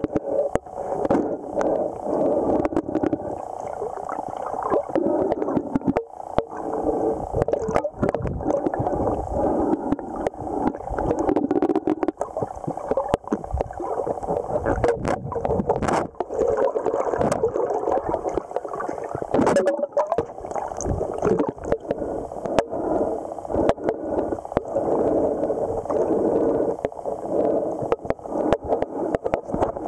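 Muffled gurgling and rushing of stream water heard through an underwater camera, with frequent clicks and knocks scattered through it.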